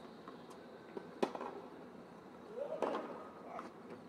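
Tennis ball being hit in a rally: sharp pops of racquet on ball about a second in and again near three seconds, the second with a short rising pitched sound. A faint steady high hum runs underneath.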